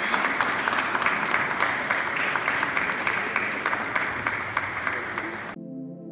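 A congregation applauding: dense clapping that cuts off abruptly about five and a half seconds in. It gives way to soft ambient music with sustained notes.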